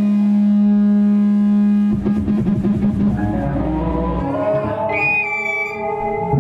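Live band music: a loud held droning note cuts off about two seconds in, and busy plucked notes follow.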